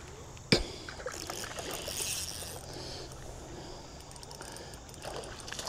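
Hooked smallmouth bass splashing and thrashing at the river's surface as it is fought toward the bank, with a sharp knock about half a second in.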